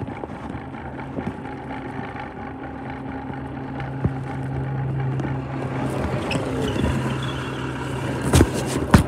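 Yard waste truck's engine running with a steady hum, growing louder from about three seconds in. Two sharp knocks near the end from the recording device rubbing against clothing.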